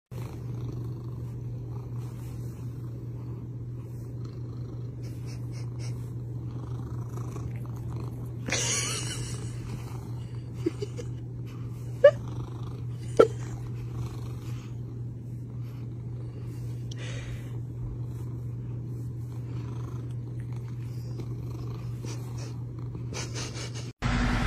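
A cat purring steadily, with a rustle about a third of the way in and two short sharp sounds about a second apart around the middle.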